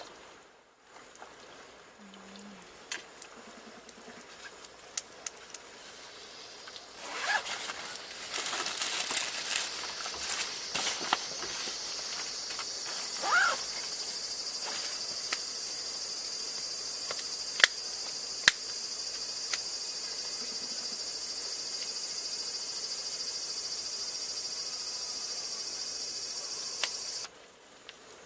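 A steady high-pitched drone of summer insects that swells in about seven seconds in and stops abruptly near the end, with scattered sharp clicks over it.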